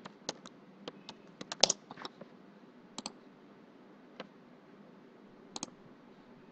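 Computer keyboard typing a short word, a quick run of keystrokes over the first two seconds, then a few separate mouse clicks, one of them a quick double click.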